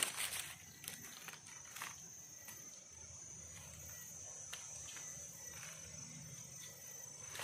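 Faint steady high-pitched insect drone in dry forest, with a few soft clicks and rustles as the picked mushroom is handled.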